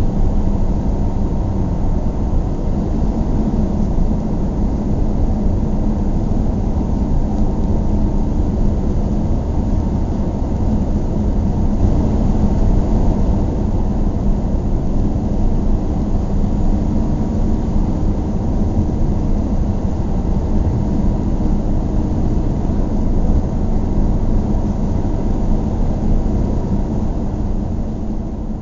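Car driving along: a steady low rumble of engine and tyre noise, fading out near the end.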